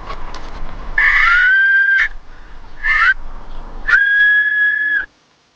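Handmade clay whistle (ni gugu) blown three times: a note of about a second that dips in pitch as it starts, a short bending note, then a longer steady note that stops abruptly.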